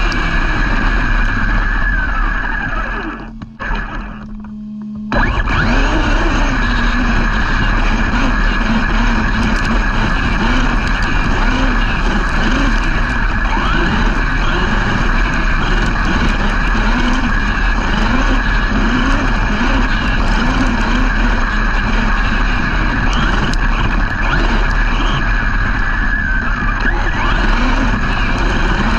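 Brushless electric motors of large RC off-road trucks running hard, their whine rising and falling with the throttle over a constant rush of noise. The sound drops away briefly between about three and five seconds in, then returns at full level.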